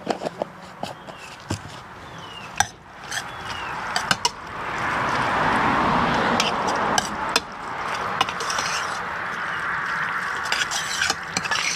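A metal spoon knocking and scraping in a stainless steel bowl as pasta is stirred with mayonnaise. There are a few sharp clinks in the first seconds, then a steady hiss from about four seconds in, the loudest part, with more clinks through it.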